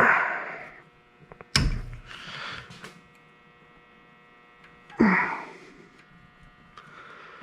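Vice grips being worked on a seized screw: three short scraping bursts, the second opening with a sharp click, over a steady electrical hum.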